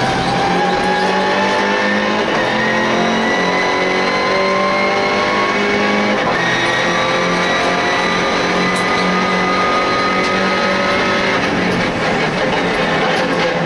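MINI Challenge race car engine heard from inside the cockpit, pulling hard with its pitch climbing slowly. The pitch drops briefly about six seconds in and again near the end as the driver shifts up, then climbs again.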